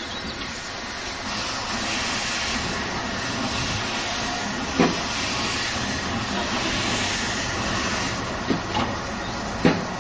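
Hunslet Austerity 0-6-0ST saddle-tank steam locomotive moving slowly over yard tracks with a steady hiss, and a sharp clank about halfway through and three more near the end.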